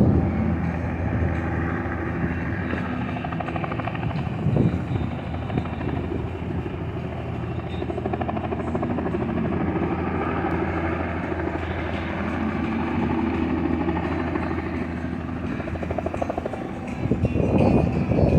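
Helicopter running steadily: a steady low hum of engine and rotor, with a rapid chop, growing louder near the end.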